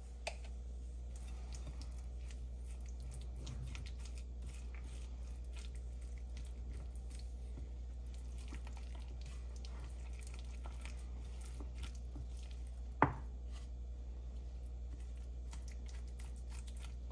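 Spoon stirring thick mayonnaise with chopped onion and herbs in a ceramic bowl: soft squelching and scraping, with a single sharp knock about thirteen seconds in, over a steady low hum.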